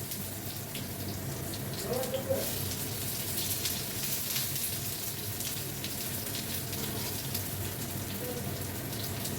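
Chopped onion sizzling and crackling steadily in hot oil on a tawa, over a low steady hum.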